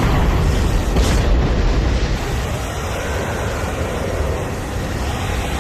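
Explosion sound effects: a deep blast with a second one about a second in, trailing off into a steady low rumble.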